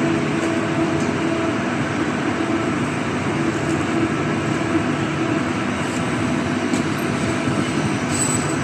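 Arc welding running continuously: a steady, dense hiss with a low hum underneath.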